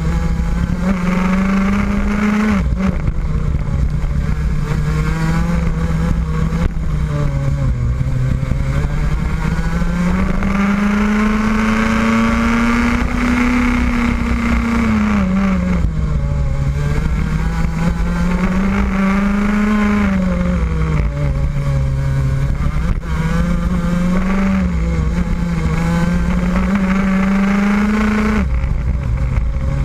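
Rotax 125cc two-stroke kart engine at racing speed, heard from on board the kart. Its pitch rises as it revs out along the straights and drops when the driver lifts for the corners, with one long climb through the middle.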